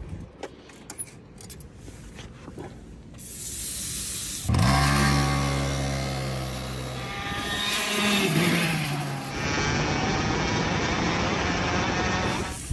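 Racing go-kart's two-stroke engine catching suddenly a little over four seconds in and running loud, its pitch dropping around eight seconds in, then a steady drone as the kart drives. Before it catches there are only a few faint clicks and a rising hiss.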